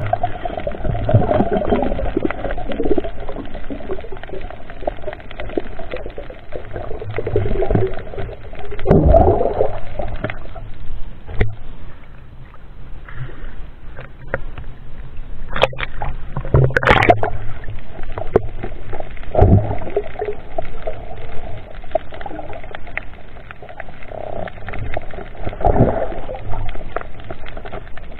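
Water sloshing and gurgling around a camera moving underwater and breaking the surface, with a low rumble and a few sharp clicks about halfway through.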